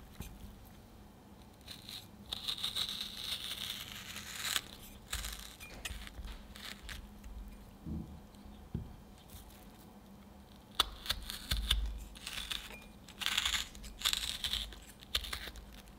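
Metal melon baller scooping balls out of a firm peeled peach: crisp scraping and crunching of the flesh in two stretches, with a few sharp light knocks between them.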